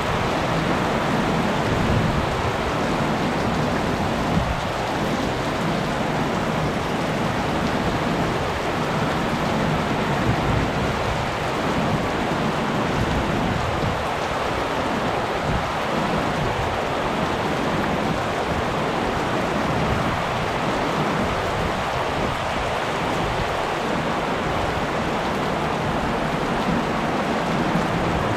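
Heavy rain falling steadily, an even wash of rain noise with no break.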